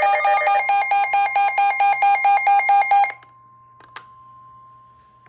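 Weather alert receiver's electronic alarm beeping rapidly: a harsh, warbling two-pitch beep at about four pulses a second, sounding for a severe thunderstorm warning. It cuts off about three seconds in, leaving a faint steady tone and a single click.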